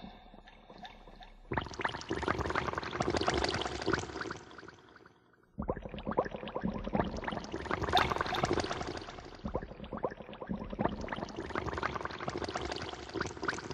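Sound-design soundtrack of dense crackling, liquid-like textures, like water pouring and bubbling. It comes in about one and a half seconds in, drops out briefly around five seconds in, then resumes.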